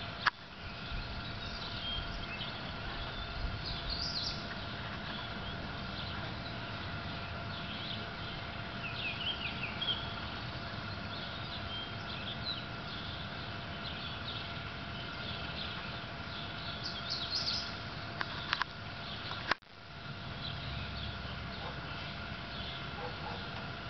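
Songbirds chirping now and then in outdoor ambience over a steady background hum. There is a sharp click just after the start and a brief dropout about twenty seconds in.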